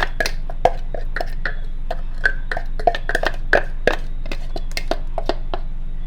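Irregular knocks and clinks of kitchen utensils and containers, a few a second, over a steady low hum.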